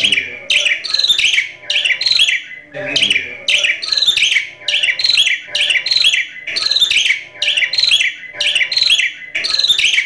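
Javan myna calling over and over: short calls that fall in pitch, about two a second.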